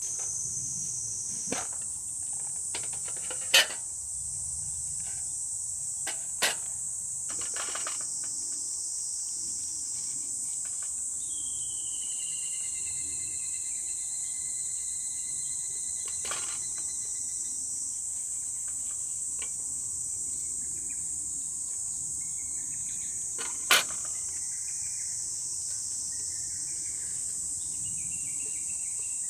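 Steady high-pitched chorus of insects, with a few sharp cracks or clicks on top: the loudest come a few seconds in and again about three quarters of the way through. A short falling whistle sounds near the middle.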